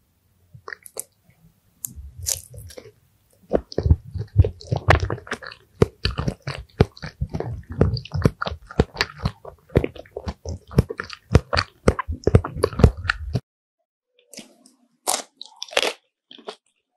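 Close-miked eating sounds: a person biting and chewing crunchy food in quick crunches. The crunching stops abruptly about 13 seconds in; after a short silence, a few separate bites follow.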